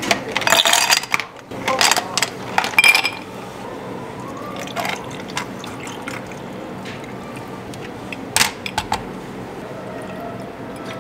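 Ice cubes tumbling from a plastic scoop into two glass tumblers, clattering and clinking for the first three seconds. Water is then poured from a pitcher over the ice, with a couple of sharp clinks about eight seconds in, and milk begins to pour into a glass near the end.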